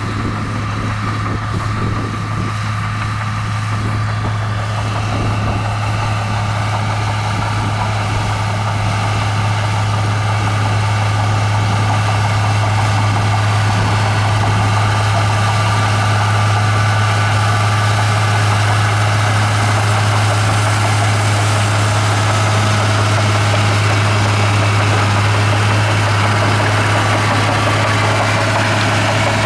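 Komatsu bulldozer's diesel engine running steadily with a low drone, growing a little louder over the first ten seconds or so.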